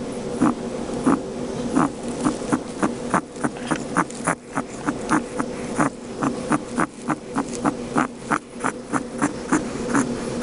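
A guinea pig's wheezing, rattling breaths, one short noisy pulse per breath, about two a second and quickening to three or four a second midway. This is the laboured breathing of a guinea pig with an upper respiratory infection.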